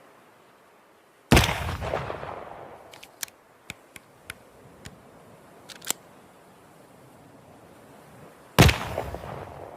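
Two flintlock pistol shots about seven seconds apart, each a sharp report with a long echoing tail. A few light clicks come between them.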